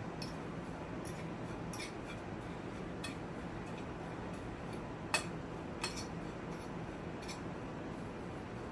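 A few scattered light clicks and clinks of kitchen utensils and dishes, the sharpest a little past five seconds in.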